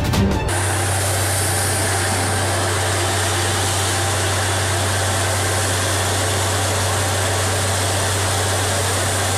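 A well-drilling rig's engine runs steadily under a loud, even rush of water and air blasting out of the borehole. The sound starts about half a second in, when music cuts off.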